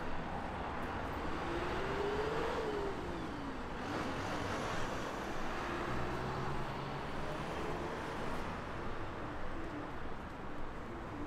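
Steady city street traffic noise, with one passing vehicle's tone rising and then falling a couple of seconds in.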